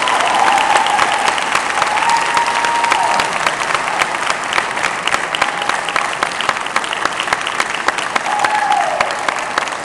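Audience applauding in a hall, a dense clatter of many hands clapping. A few voices call out over it, and it eases slightly near the end.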